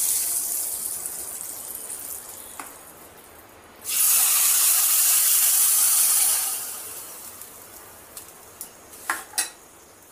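Hot tadka (spiced tempering oil) sizzling as it is poured from a small pan onto yogurt. The sizzle fades over the first few seconds, flares loud again at about four seconds as more oil goes in, then dies away; a few sharp clicks near the end.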